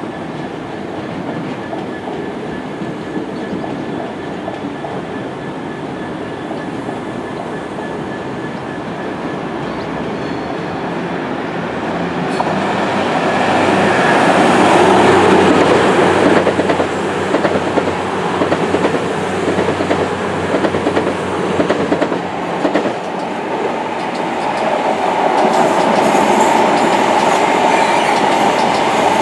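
Electric multiple-unit passenger trains running past on a multi-track main line: a steady wheel and rail rumble that swells to its loudest about halfway through. The wheels then clack in a rhythm over the rail joints, and near the end the sound builds again with a steady whine mixed in.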